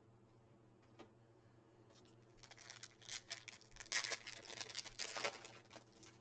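Baseball cards and their packaging being handled: a single click, then a few seconds of irregular crinkly rustling and clicking.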